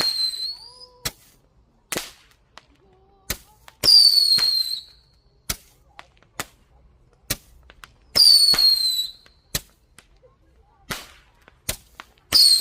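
Fireworks going off: sharp cracks and bangs about once a second, and a shrill whistle, falling a little in pitch and lasting about a second, that comes about every four seconds.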